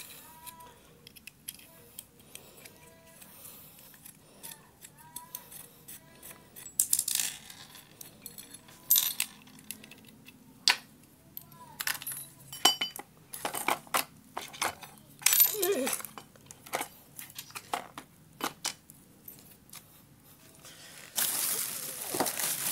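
Small metal air rifle parts clicking and clinking as the chamber's trigger unit is taken apart by hand, with screws and trigger pieces set down on the table in a run of separate sharp taps. Near the end comes a rustling of paper or cardboard.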